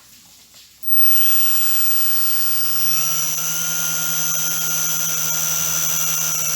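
Drone's electric motors and propellers spinning up about a second in, a whine rising in pitch for a couple of seconds and then running steady.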